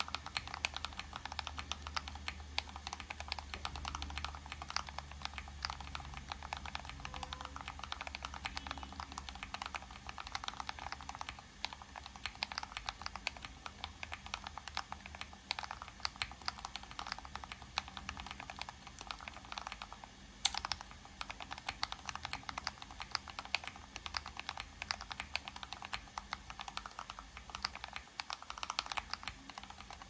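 Fast, continuous typing on a split mechanical keyboard, a rapid patter of keystrokes at about 80 words a minute. One sharper, louder clack comes about two-thirds of the way through.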